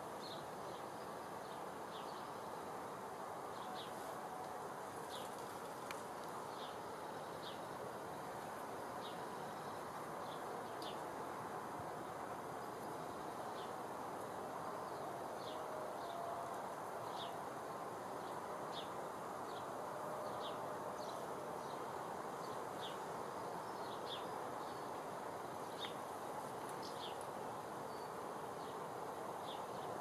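Outdoor ambience: a small bird repeats short, high, falling call notes, irregularly and about once a second, over a steady, even rush of background noise.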